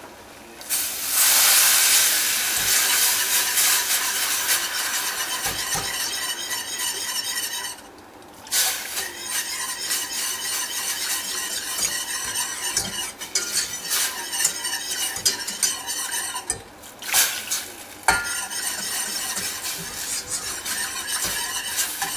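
Water poured into a hot butter-and-flour roux in a stainless steel saucepan sizzles loudly at first and then eases off. The water goes in over several pours while a wire whisk stirs it through the thickening sauce.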